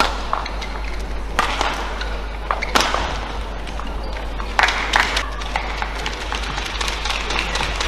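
Badminton rally: sharp racket smacks on the shuttlecock about every second and a half, the last two close together, over the steady hum of an arena crowd.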